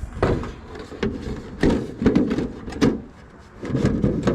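Aluminum trim being handled and pushed into place against the roof edge: a run of irregular clunks and rattles, about six or seven in a few seconds.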